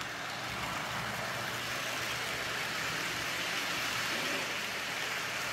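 Lionel postwar GG1 model locomotive pulling MTH Rail King Madison passenger cars along the track: a steady whirring rumble of motor and wheels on the rails, growing a little louder as the cars pass close by.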